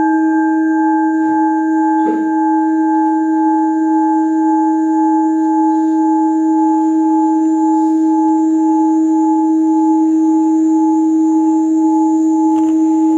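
Crystal singing bowl sounding one sustained deep note with several higher overtones, held at an even level without fading.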